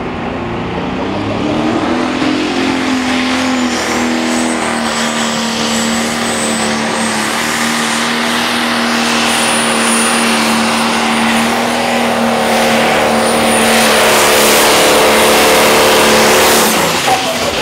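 International 966 Pro Stock pulling tractor's turbocharged diesel engine revving up and held at high, steady revs under load, with a high whistle above the engine note; near the end the pitch drops suddenly.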